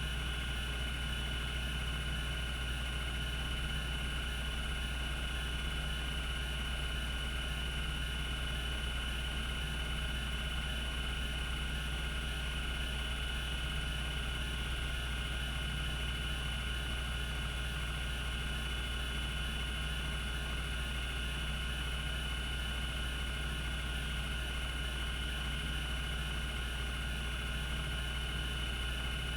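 Cogito Systems CG-912 hard disk spinning at its 3600 rpm running speed: a steady low hum with a constant high whine, and no clicking from head seeks.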